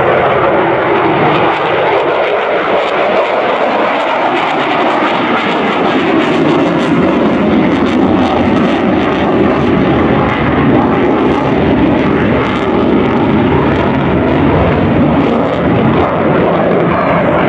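Lockheed Martin F-22 Raptor's twin Pratt & Whitney F119 turbofan engines running loud and steady as the jet flies past overhead, with a crackle in the jet noise.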